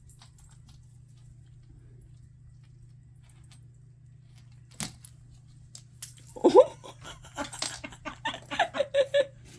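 A person laughing in short rhythmic bursts through the second half, over faint metallic jingling.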